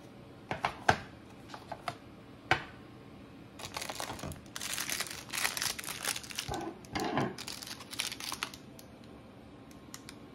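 Clear plastic wrapping crinkling and rustling as a tubular finger bandage roll is unwrapped by hand, in a dense stretch of a few seconds that starts around the middle. Before it come a few sharp clicks and taps of plastic packets being handled.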